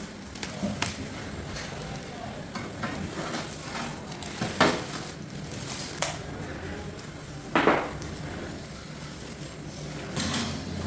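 Tile-laying work: steady scraping with scattered light knocks, and a louder brief scrape about seven and a half seconds in.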